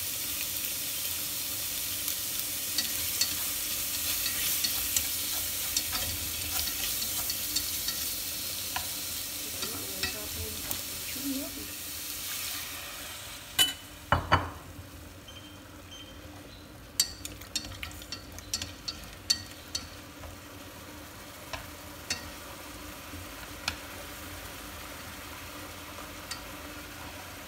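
Marinated red tilapia pieces sizzling in hot oil in a stainless steel pot while being stir-fried with wooden chopsticks, which tap and scrape against the pot. The sizzle is strong at first and dies down about halfway through, leaving scattered sharp chopstick taps on the pot.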